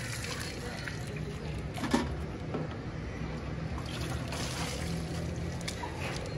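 Water poured from a plastic mug into a large steel basin, sloshed around and tipped out onto the ground as the basin is rinsed. A single sharp knock about two seconds in.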